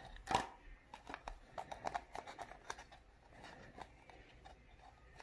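A clear plastic mixing cup and a wooden stir stick being handled: one sharp click near the start, then a run of light clicks and taps.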